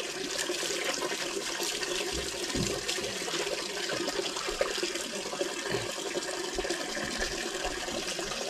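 Water pouring and splashing onto a wet concrete floor as a puppy is bathed, its wet coat rubbed and scrubbed by hand. The water noise is steady.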